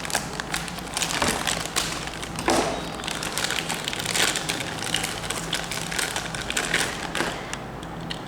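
Plastic packaging crinkling and crackling as it is handled and pulled open, with many irregular rustles and small clicks.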